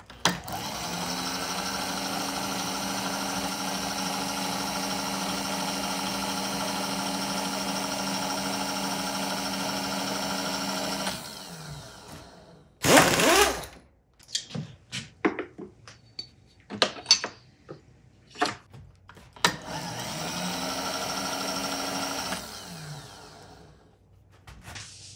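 Vertical milling machine's spindle motor running steadily with a slitting saw mounted, then switched off and spinning down about eleven seconds in. A short loud rush of noise, clicks and knocks of handling at the vise follow, then the spindle runs again briefly and spins down near the end.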